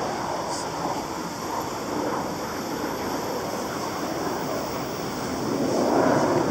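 Distant fighter jets' rushing roar, with a passing freight train underneath, swelling louder near the end.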